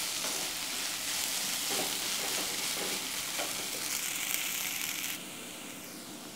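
Sliced onions sizzling in hot oil in a pot while being stirred with a wooden spoon, with a few faint spoon knocks; they are being fried toward brown and crisp. The sizzle drops quieter about five seconds in.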